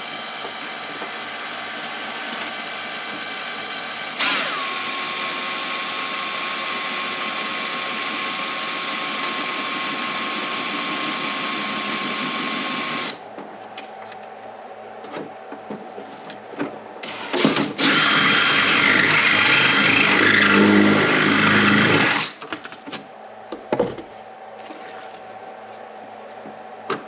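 Power drill running while drilling a hole for the RC truck's light bar: one long steady run of about thirteen seconds, then, after a pause with small knocks, a second, louder run of about four seconds.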